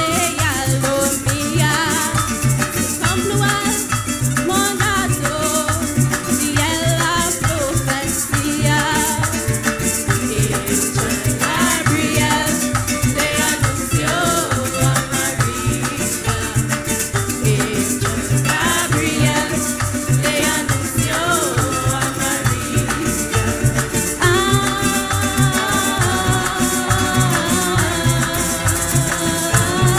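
Parang music: a band playing with maracas shaken steadily over a regular bass beat, and a voice singing.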